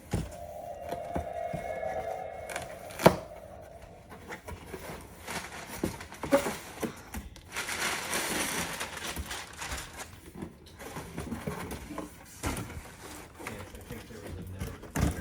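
Paper and packaging crinkling and tearing while a parcel is handled and opened, with a sharp click about three seconds in. A steady hum sounds for the first two or three seconds.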